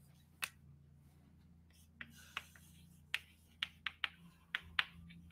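Chalk tapping on a blackboard as letters are written: a string of short, sharp, irregular taps, sparse at first and coming faster from about two seconds in, over a faint steady low hum.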